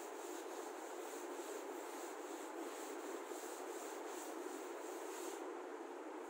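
Chalkboard duster being rubbed back and forth across a chalkboard, wiping it clean, in quick strokes about two or three a second that stop about a second before the end.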